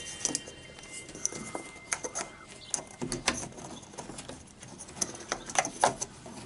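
Irregular small knocks, taps and scrapes of a wooden offcut wedge being pushed and worked into place against a window frame by hand, with the loudest few close together near the end.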